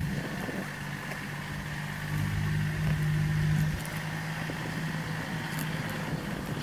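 A motor engine running steadily, heard as a low hum that swells about two seconds in and fades by about six seconds.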